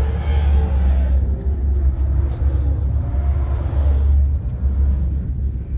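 A loud, steady low rumble, with a fainter mid-range hiss that thins out about four seconds in.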